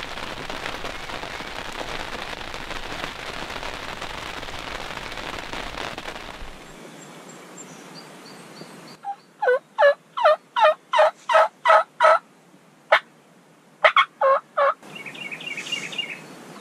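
Wild turkey yelping: a run of about nine loud yelp notes in quick succession, a single note, then three more. A steady hiss comes before the yelps.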